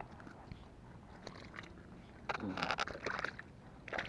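Rustling, crackling handling noise in two short bouts, a little past halfway and again near the end, as a freshly caught fish is put away.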